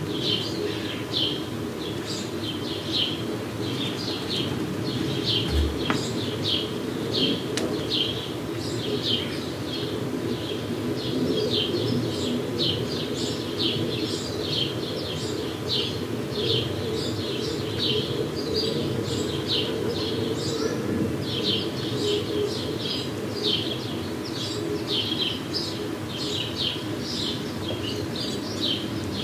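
Bullock's orioles calling: short high chirps repeated about twice a second without a break, over a steady low background rumble.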